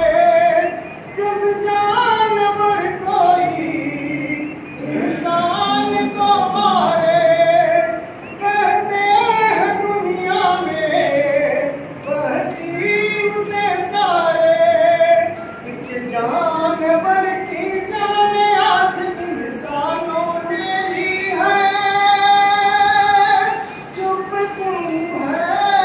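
Women's voices singing a song together in long held phrases that bend in pitch, with brief breaks between lines; it sounds like a group welcome song.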